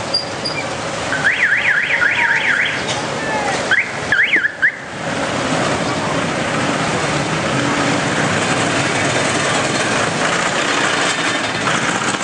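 Electronic alarm warbling rapidly up and down in pitch, about four sweeps a second, in two short bursts within the first five seconds. After that comes a steady rushing noise.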